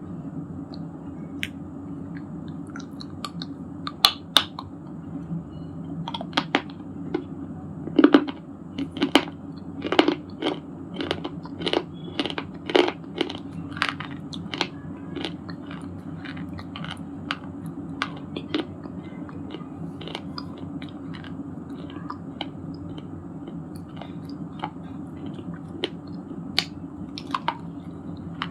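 Broken shale stone pieces being bitten and chewed, giving sharp, crisp crunches, a dense run of them in the middle and scattered ones before and after, over a steady low background hum.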